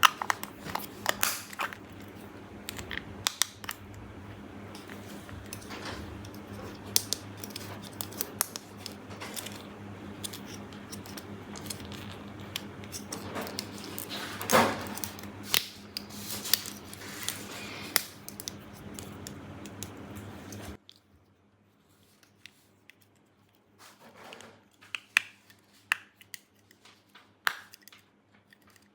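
Close-up clicks, snips and crackles of a toy playset and its packaging being handled and opened, with many sharp short sounds. About two-thirds of the way through it cuts abruptly to a much quieter stretch with only scattered light clicks.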